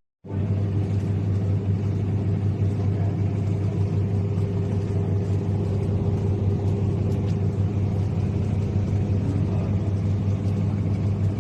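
Toshiba top-loading washing machine running: a steady low motor hum with a rumbling, noisy wash over it.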